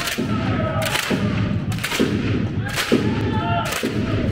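Rhythmic crowd cheering in an indoor sports arena: five heavy, echoing beats about a second apart, with crowd voices underneath.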